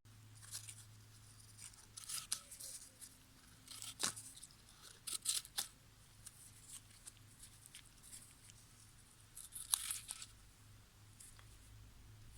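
Faint handling noises: scattered light clicks and rustles, with one sharper click about four seconds in, over a low steady hum.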